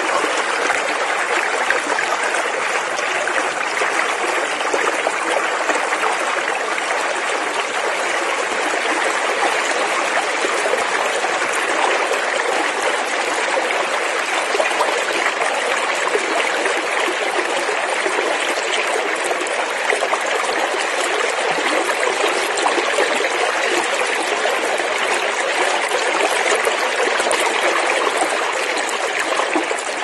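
Creek water running steadily over rocks, an even rushing without let-up.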